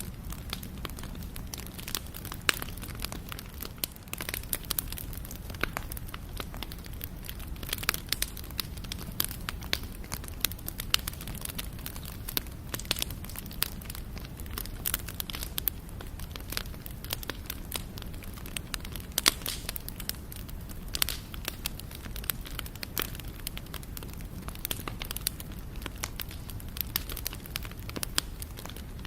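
Wood bonfire burning, with frequent small crackles and pops at an irregular pace over a steady low rumble. One sharper pop stands out about two-thirds of the way through.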